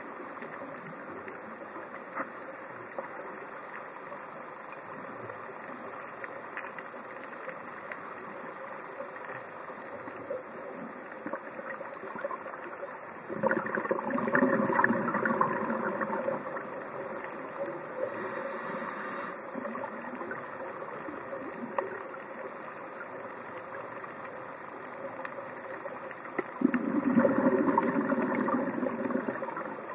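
Underwater sound through a diving camera's housing: a steady hiss, broken twice, about halfway through and again near the end, by a louder bubbling rush of about three seconds as the scuba diver exhales through the regulator.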